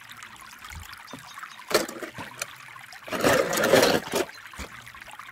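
Water trickling steadily, with a sharp click a little before two seconds and a splash of about a second just after three seconds, as die-cast toy cars drop into a plastic tub of water.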